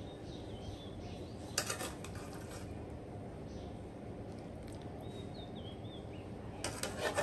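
Metal tongs clattering against a ceramic plate and pan while pasta is served, in two short bursts: about a second and a half in, and near the end. A steady low hum runs underneath, and a bird chirps faintly twice.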